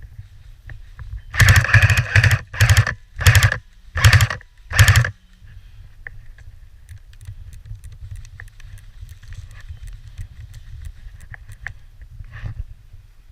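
Airsoft gun firing five rapid bursts of clicking shots, the first the longest, over a few seconds, with low rumbling handling noise throughout.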